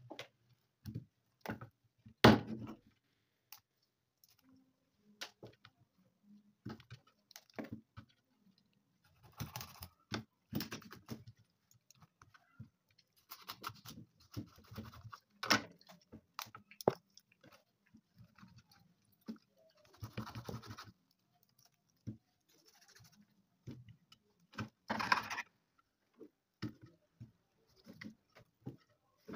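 Kitchen knife cutting up a whole raw kienyeji (free-range) chicken on a cutting board: irregular knocks of the blade on the board, the loudest about two seconds in, with longer scraping stretches as the meat is worked and cut apart.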